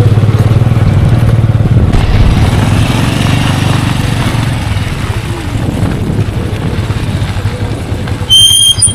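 A motorcycle engine runs steadily as the bike rides slowly over a gravel track, with noise from the tyres and the road. Near the end comes a short, loud, high-pitched beep.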